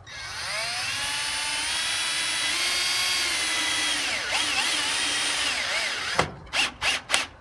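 Cordless drill driving a screw. The motor whine rises to speed and runs steadily, then wavers and dips in pitch and stops about six seconds in. Three short trigger bursts follow to seat the screw.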